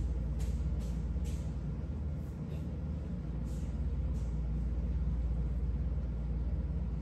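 Steady low rumble or hum, with a few brief soft clicks and rustles in the first few seconds.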